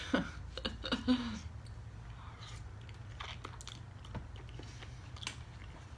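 A person chewing mouthfuls of creamy fettuccine alfredo close to the microphone, with scattered small wet mouth clicks.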